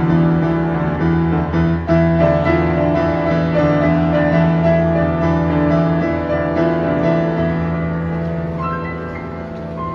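Yamaha upright piano played by hand: chords over a steady bass line, growing a little softer near the end.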